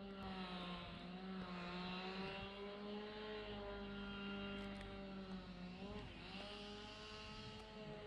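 An engine running steadily, one pitched hum that drifts slightly and dips briefly about six seconds in.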